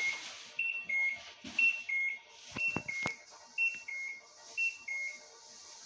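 LG WD-1054FB washing machine's control panel beeping: a high note followed by a lower note, repeated about once a second, with a couple of sharp clicks partway through.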